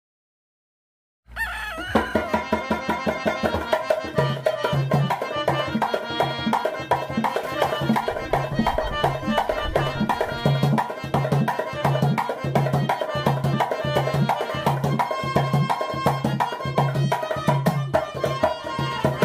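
Upbeat background music with a steady drum beat, starting after about a second of silence.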